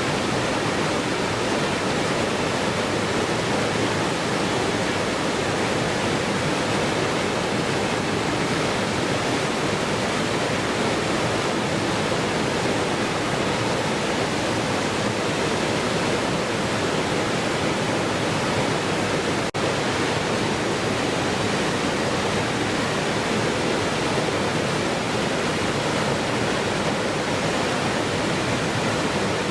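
Waterfall rushing steadily, an even, unbroken wash of falling water, with one momentary dip about two-thirds of the way through.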